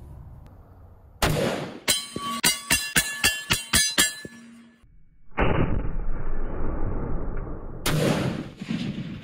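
SVT-40 semi-automatic rifle fired rapidly, about ten shots in three seconds, with the steel gong target ringing between them. A rushing noise follows, and one more shot comes near the end.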